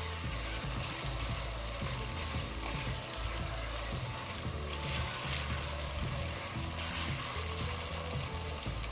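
Diced onions sizzling as they fry in hot oil in an enamelled cast-iron pot, stirred with a silicone spatula. The sizzle is steady, with soft background music under it.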